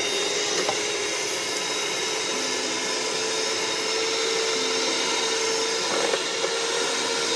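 Handheld electric mixer running steadily with a constant motor whine as it churns a thick mash in a pot.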